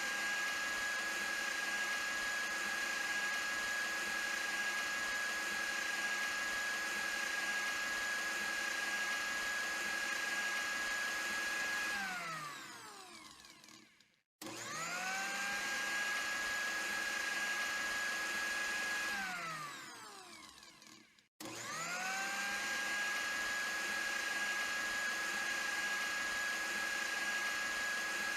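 Electric blender motor running with a steady high whine, winding down with falling pitch about twelve seconds in. It is switched on twice more, spinning up quickly each time; the second run lasts about five seconds before winding down, and the third keeps running.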